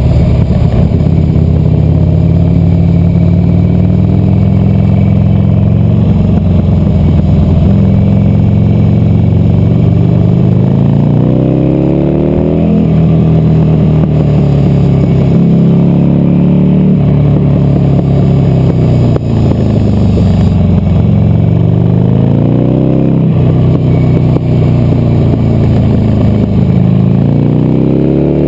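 Buell XB12Scg's air-cooled V-twin engine running under load, heard close up from on the bike. Its pitch climbs steadily three times, near the middle, about three quarters in and again near the end, and drops off sharply after each climb.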